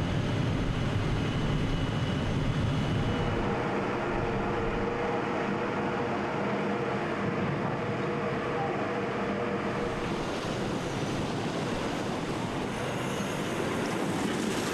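A landing craft's engine running steadily under a rushing wash of wind and water, its hum clearest in the middle stretch.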